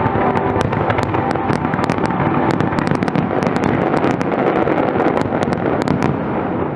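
Fireworks display: many shells and crackling effects going off together in a dense, continuous barrage of sharp cracks and pops over a steady rumble.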